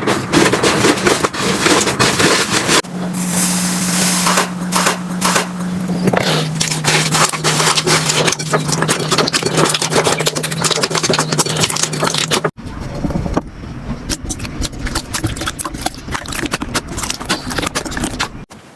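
Slime being squeezed and pressed by hand, giving a dense run of small crackling pops and clicks. About twelve seconds in it cuts to a softer stretch of the same crackling. A low steady hum that drops slightly in pitch runs under the middle part.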